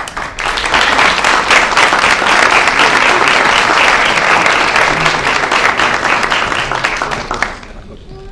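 Audience and officials applauding, many hands clapping together for about seven seconds before dying away near the end.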